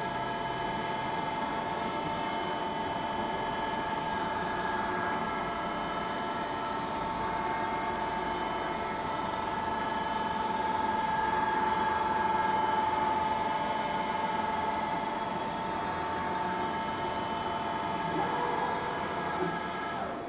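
Deckel Maho DMU 50 M CNC milling machine running, a steady machine whine made of several fixed tones, a little louder around the middle.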